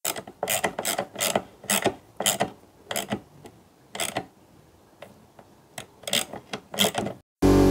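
Thread-cutting tap being turned slowly by hand into a seized, drilled-out steel tailgate hinge pin: a run of short metallic clicks and scrapes, two or three a second, with a brief lull about five seconds in. The tap is worked gently so that it does not snap in the hole.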